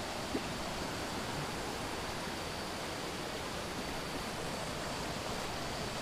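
Shallow rocky stream rushing over small cascades between boulders, a steady even wash of water, with one brief knock near the start.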